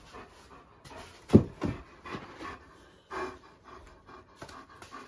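A dog panting in quick, irregular breaths, with one sharper, louder breath about a second and a half in.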